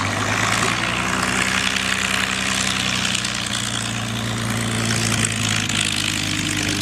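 P-51 Mustang's V-12 piston engine running at a steady low taxiing idle, its propeller turning, with an even low engine drone under a wide hiss.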